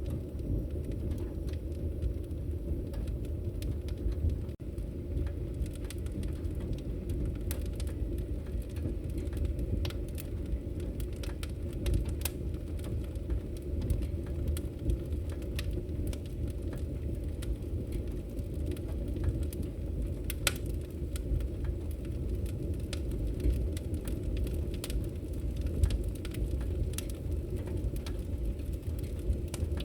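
Logs burning in a fireplace: a steady low rumble of flames with frequent sharp crackles and pops scattered throughout.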